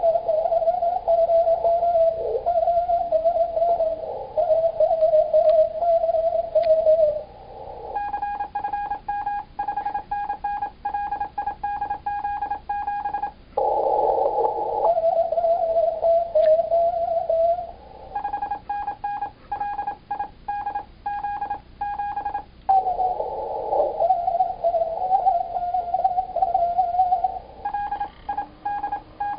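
Morse code on a Yaesu FT-890 ham transceiver, in turns: whistled Morse with a wavering pitch alternates with clean, steady keyed CW tones. The keyed tone comes in about 8 s, 18 s and 28 s in, with whistling between.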